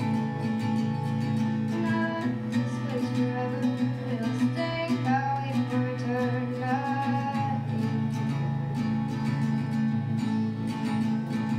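Acoustic guitar strummed in a steady rhythm, with a young girl's voice singing a melody over it for a few seconds in the middle.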